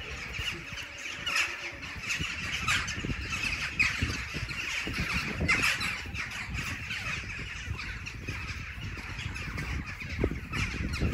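Crows cawing, a run of harsh calls in the first six seconds, over a steady low rumble.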